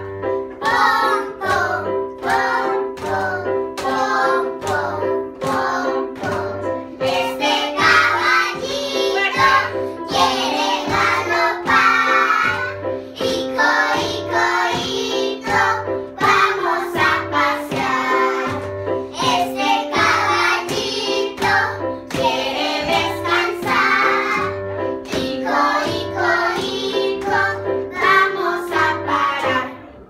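A group of young children singing a children's song together over a musical accompaniment with a steady beat about once a second. The music stops abruptly at the end.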